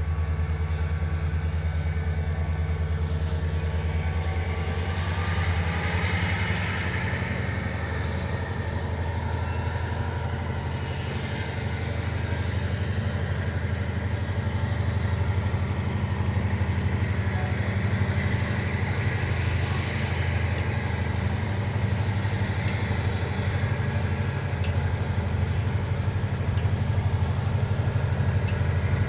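Diesel train engine running steadily at low revs, a deep even throb with no change in speed.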